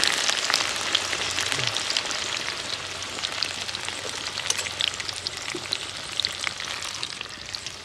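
Green banana chunks deep-frying in bubbling oil in a wok: a steady sizzle full of small crackles, growing gradually fainter.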